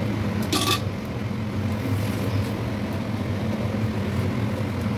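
Steady low mechanical hum, with a brief clink of metal utensils about half a second in.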